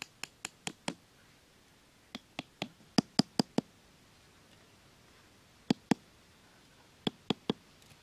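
A hammer tapping short bamboo stakes into sandy ground: four quick runs of sharp knocks, about four or five a second. The longest and loudest run comes in the middle, and the two short runs come near the end.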